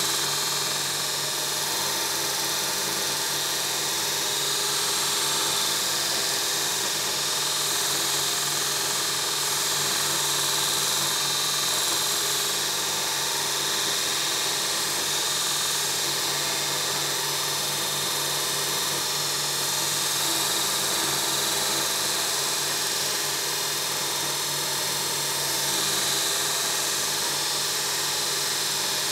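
2x42 belt grinder running, its abrasive belt grinding a flat metal bar held on the work rest: a steady hiss of belt on metal over the motor's hum, swelling slightly now and then.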